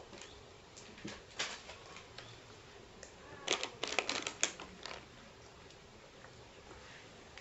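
Small plastic clicks and taps as a plastic drink bottle and little plastic cups are handled, with a quick run of clicks a little past halfway.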